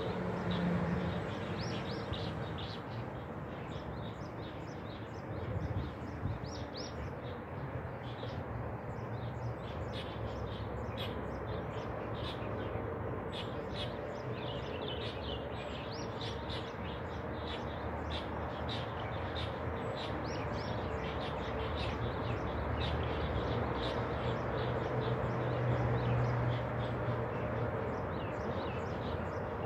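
Many small birds chirping and twittering in quick short notes throughout, over a steady low background hum.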